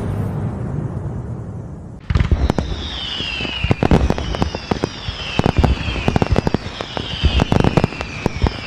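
Fireworks: a fading rumble, then from about two seconds in a rapid run of crackling bangs with repeated falling whistles.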